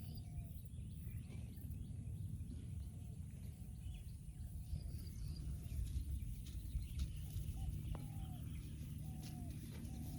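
Birds calling in the open: one bird repeats a short call about once a second, each dipping in pitch at its end, while fainter high chirps sound now and then, over a steady low rumble.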